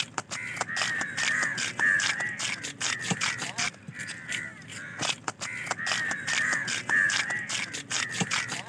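A knife blade scraped over and over along a large fish's body, taking off its scales by hand: quick runs of scraping strokes with many sharp clicks as the scales come away.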